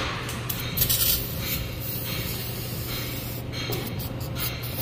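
Aerosol can of CRC brake cleaner spraying onto a wheel hub and tone ring in several short hissing bursts.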